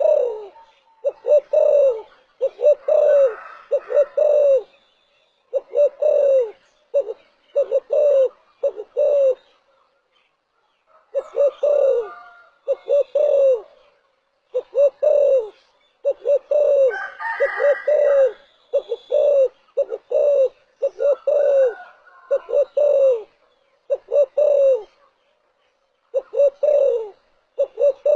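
Spotted dove cooing: repeated phrases of three to five short, falling coos, each phrase followed by a brief pause.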